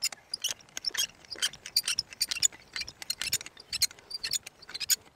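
A hand crank screwing an insulator into a wooden fence post: a steady run of small, irregular clicks and creaks as the tool is turned.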